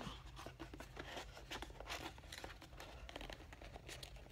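Faint rustling, crinkling and small clicks of a cardboard watch box and its packaging being handled.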